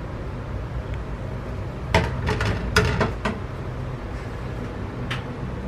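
Metal spoon clinking against a ceramic plate: a quick run of clicks about two to three seconds in, and one more about five seconds in, over a steady low hum.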